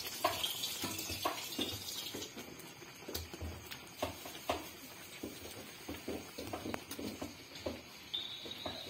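Raw chicken pieces being laid into a metal wok of simmering sauce, with scattered soft knocks and taps of the spatula against the wok. A brief high steady tone sounds near the end.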